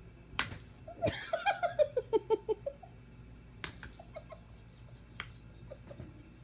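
A person's high-pitched giggle: a quick run of about eight short 'ha' notes falling in pitch, with a sharp click just before it and a few light clicks afterwards.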